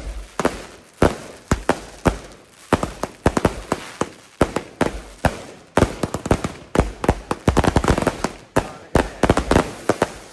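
Consumer fireworks going off: a rapid, irregular string of sharp bangs and crackles, several a second, thickest from about seven to nine seconds in.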